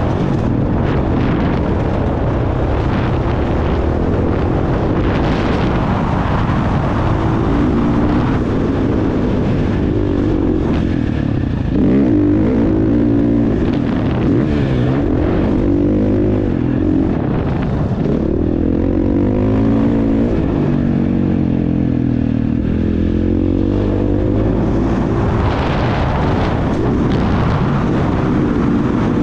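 Motocross bike engine running hard without a break, its pitch climbing and dropping again and again as the throttle opens and closes and the gears change.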